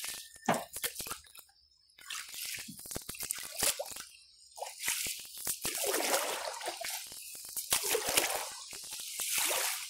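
Water splashing and dripping around a canoe on a shallow, rocky river, coming in several swells with small clicks and knocks between them.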